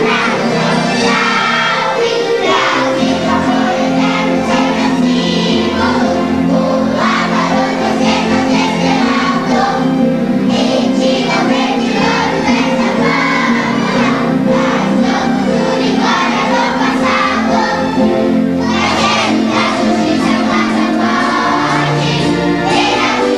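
A choir of young children singing together over musical accompaniment.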